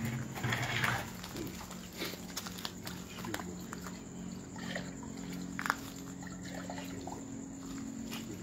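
Water splashing and sloshing in a plastic bucket as a steel mug is worked among floating limes, with a few light knocks of the mug against the bucket. A steady low hum and a steady high tone run underneath.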